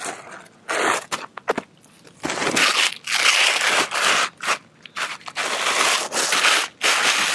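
Gritty scraping and crunching of asphalt roof shingles being slid and rubbed under a gloved hand: a few short scrapes at first, then long, dense stretches of scraping through the second half.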